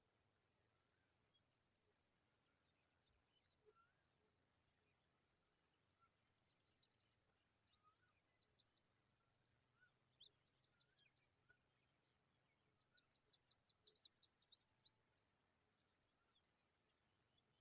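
Skylarks at the nest chirping faintly: four short bursts of rapid, high chirps, the longest and loudest a little past halfway.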